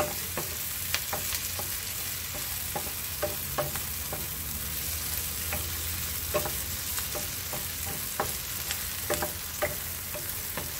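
Chopped onions sizzling in oil in a non-stick wok as they cook down to translucent, stirred with a wooden spoon that gives scattered light taps and scrapes against the pan over a steady hiss.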